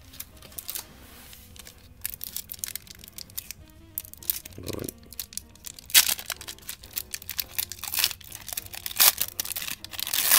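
Foil wrapper of a 1991 Upper Deck basketball card pack being torn open and crinkled by hand: a rapid run of crackles that starts about two seconds in and is loudest around six seconds.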